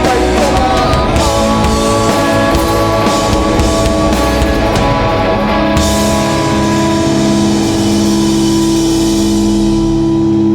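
Live punk rock band playing loud with distorted electric guitars and drums; a little past halfway the drums stop and the guitars hold a final chord that rings on as the song ends.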